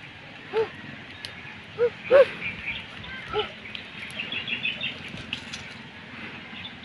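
Birds calling: a few short, arching calls, the loudest about half a second and two seconds in, and a quick run of high chirps about four to five seconds in.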